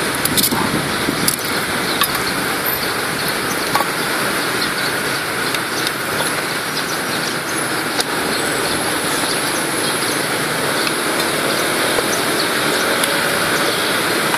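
Steady road traffic noise, with a few sharp clicks scattered through it, mostly in the first few seconds.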